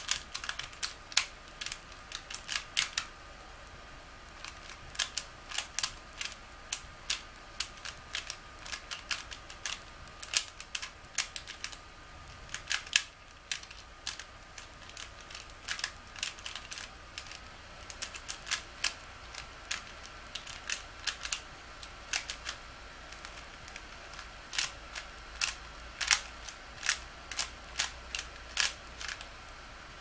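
Plastic 3x3x3 Rubik's cube being turned fast by hand: runs of sharp clicking as the layers snap round, broken by short pauses between sequences of turns.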